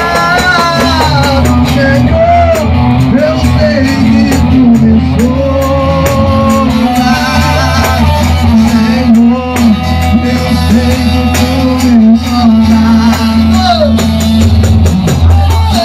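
A band playing a worship song in rehearsal: bass, drums and guitar under a lead melody that bends and wavers in pitch.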